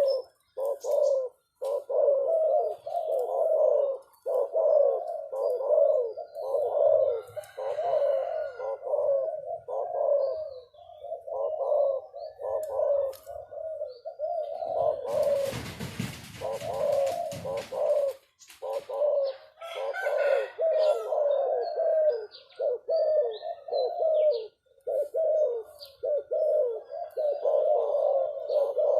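Doves or pigeons cooing over and over, the short calls following one another closely with no real pause. About halfway through, a burst of noise lasting about three seconds covers the cooing.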